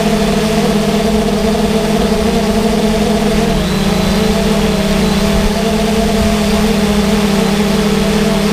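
Drone's electric motors and propellers humming steadily, heard close up from the camera on board, with a slight shift in pitch about three and a half seconds in.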